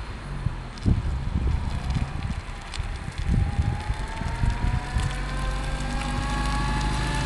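Wind buffeting the microphone in gusts, with a couple of heavy thumps, while a small Suzuki Swift sedan reverses closer. Over the last few seconds its engine is joined by a whine that rises steadily in pitch as the car gathers speed.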